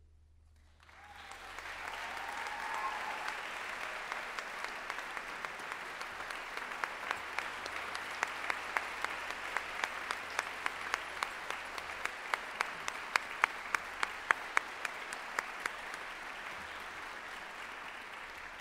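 Audience applauding, swelling up about a second in and holding steady, with sharp, louder single claps from close by standing out through the middle.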